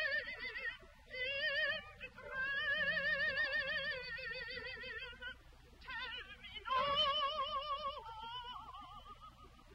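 A contralto voice singing a spiritual in several phrases of long held notes with a wide, even vibrato. The highest and loudest note comes about two-thirds of the way through, and the voice fades near the end.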